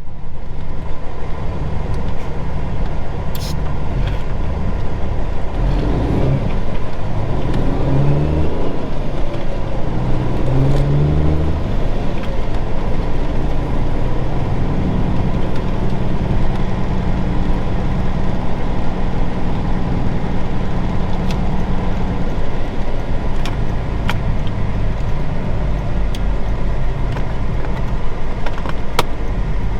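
1999 Peterbilt 379's Cummins Signature Series diesel engine pulling the truck up through the gears, its pitch climbing and dropping at a couple of shifts, then holding steady at a cruise.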